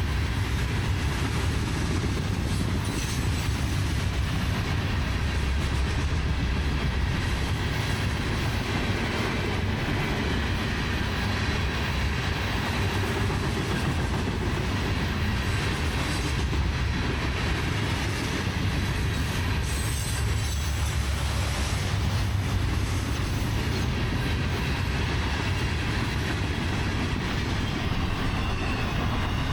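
Long mixed freight train's cars rolling past steadily, steel wheels on the rails with some clickety-clack.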